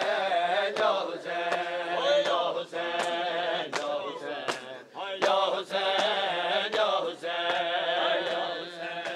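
Group of men chanting a Shia noha lament in unison over a steady beat of sharp hand-on-chest slaps (matam), a little under two a second.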